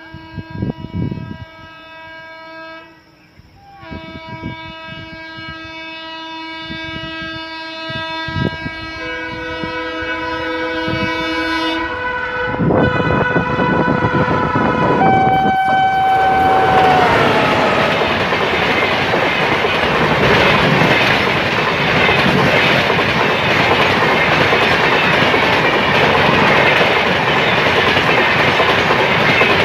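WAP-7 electric locomotive's triple-tone horn sounding in long blasts as the train approaches, with a short break about three seconds in. Its pitch drops as the locomotive passes around sixteen seconds in. Then the express rushes by at speed with loud, steady wheel-and-rail clatter.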